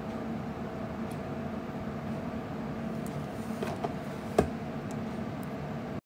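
Steady background hum and hiss of room tone, with one short sharp click about four seconds in; the sound cuts off suddenly at the very end.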